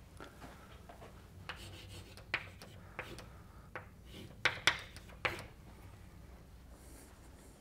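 Chalk writing on a blackboard: a string of short sharp taps and scratches, the loudest three close together about four and a half to five and a half seconds in.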